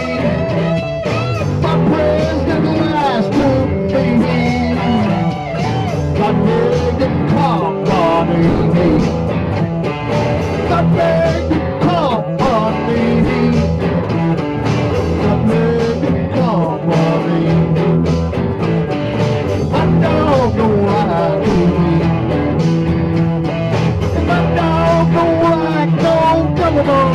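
Blues-rock band playing an instrumental break: a lead guitar solos with bent, gliding notes over bass and drums.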